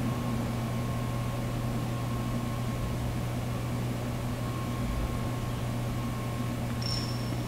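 Steady low hum with a faint hiss: room noise. A brief high ring sounds near the end.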